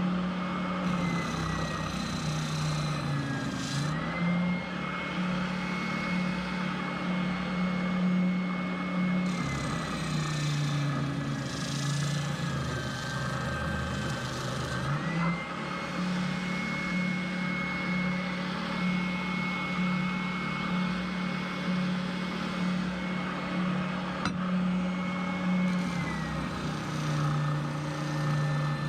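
Router motor running steadily through a cut, its hum and high whine dropping in pitch together several times as the bit loads up, then recovering.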